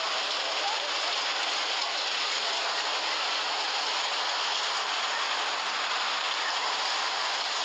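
Steady rushing noise of heavy rain together with a fast-flowing, mud-laden flash flood torrent swollen by the downpour.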